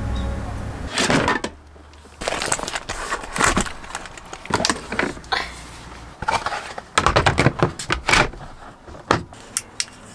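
Irregular clatter, knocks and rustling of household items being handled and put away, with a dense run of sharp knocks a little past the middle and a few single clicks near the end.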